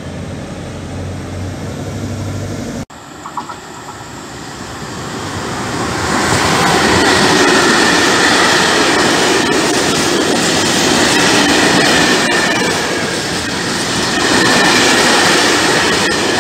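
Freight train of hopper wagons rolling past close by: a rumble of steel wheels on rail that builds over a few seconds and then holds loud and steady, with a steady high wheel squeal and a few sharp clicks at rail joints. It is preceded by a low steady hum that breaks off abruptly about three seconds in.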